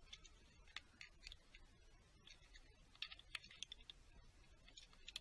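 Faint, irregular light clicks and taps from small parts being handled by hand in a car's engine bay, with a quick run of clicks about three seconds in.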